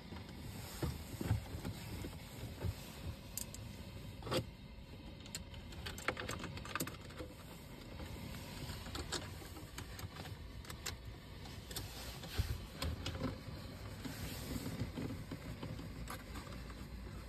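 Irregular clicks and knocks of plastic trim as the car's centre-console switch panel is handled and worked with a screwdriver.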